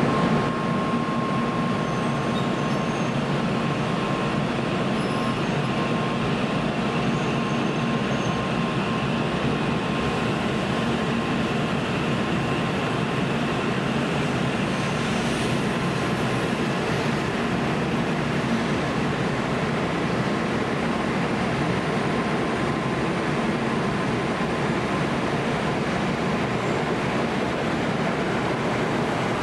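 Shinkansen train running, a steady rumble with a thin whine near the start that fades over the first ten seconds or so.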